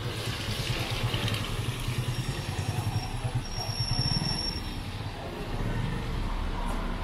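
A motorcycle engine running at low speed with a low pulsing drone, over the hiss of a city street. A thin high whine comes in briefly about three seconds in.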